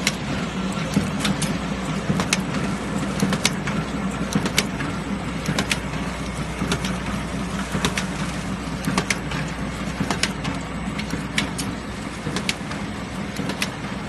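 Semi-automatic book-sewing machine running with a steady hum. A sharp mechanical click comes about once a second as each sewing cycle goes through, with lighter clicks in between.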